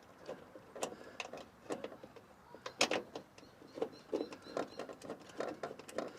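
Irregular light clicks and knocks of metal parts being handled inside a car door, as the bolts of a new door check (door stopper) are started by hand.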